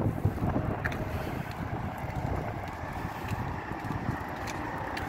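Wind buffeting the phone's microphone: a steady low rumble, with a few faint clicks.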